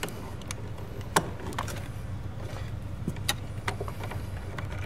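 Scattered small clicks and rattles of wires and blue insulated spade connectors being handled and pushed onto switch terminals, over a low steady hum.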